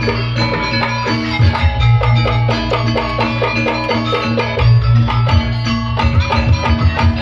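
Jaranan music: an East Javanese gamelan-style ensemble of drums and struck pitched percussion playing a busy, steady rhythm over a deep booming bass.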